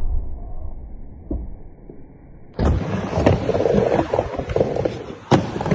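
Skateboard wheels rolling on a ramp. The first part is muffled and low, then about two and a half seconds in it turns into louder rolling with scattered clacks, and there is one sharp crack of the board near the end.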